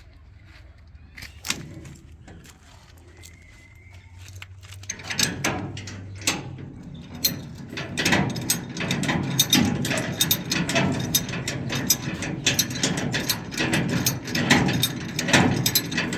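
Low steady hum with a few scattered clicks, then from about five seconds in a dense, rapid clattering of many hard knocks that grows louder.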